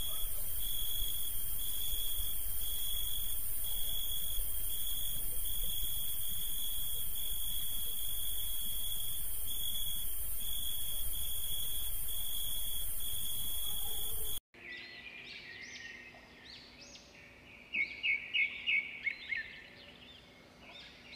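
A high-pitched tone pulsing evenly, about one and a half pulses a second, over a hiss; it cuts off suddenly about fourteen seconds in. Birds chirping follow, with a quick run of loud chirps near the end.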